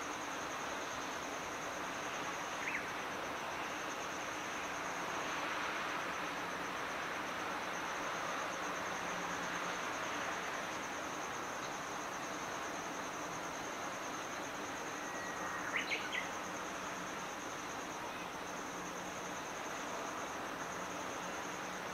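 Outdoor ambience: a steady high-pitched insect trill over a broad wash of distant noise and a faint low hum, with a short bird chirp about three seconds in and a quick cluster of chirps about sixteen seconds in.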